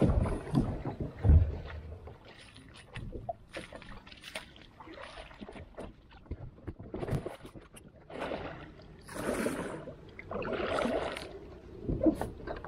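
Water swishing and splashing in a creek, in scattered small sounds and then two rushes of about a second each near the end. Low rumbling thumps at the start.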